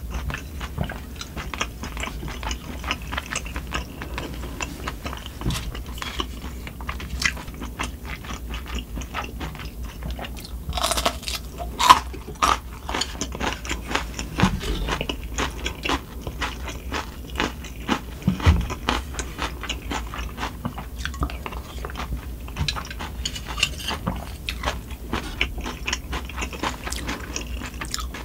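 Close-miked eating of spicy sundae-gukbap with kimchi and kkakdugi: continuous wet chewing and biting with crunches and mouth clicks, and a couple of sharper knocks about 12 and 18 seconds in. A low steady hum runs underneath, which the uploader puts down to wind and rain outside.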